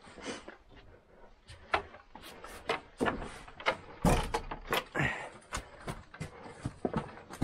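Irregular wooden knocks and clatter from footsteps and handling at a wooden shed door, with one heavy thump about four seconds in.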